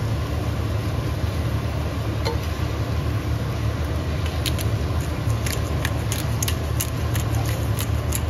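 Sliced mushrooms being stirred with a spatula in a ceramic casserole dish on a stove, over a steady low rumble and hiss. From about halfway, a run of light, irregular clicks and scrapes as the spatula works through the mushrooms.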